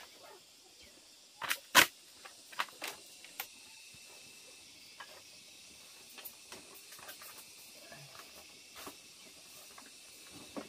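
A few sharp knocks and clicks, the loudest about two seconds in, over a faint steady high insect drone.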